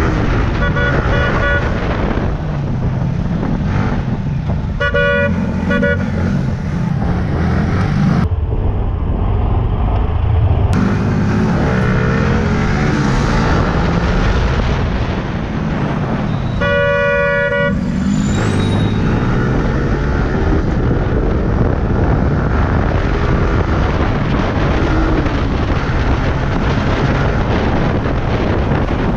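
Yamaha R15 motorcycle ridden through city traffic: steady single-cylinder engine and wind noise. Vehicle horns honk briefly near the start and twice around five seconds in, then give one longer honk past the middle.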